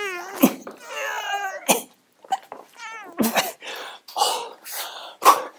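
A man straining at a push-up: whiny, drawn-out groans that slide down in pitch, broken by sharp grunts and breathy, effortful exhales.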